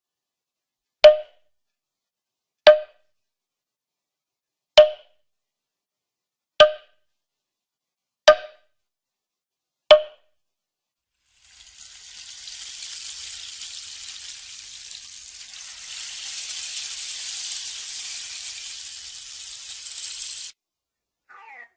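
Cartoon sound effects: six short pitched plops, evenly spaced about two seconds apart, then about nine seconds of steady high hiss that cuts off suddenly.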